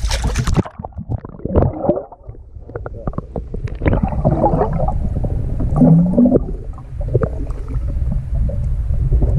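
Water noise picked up by an underwater camera's microphone: a steady low rumble with irregular muffled gurgling bursts.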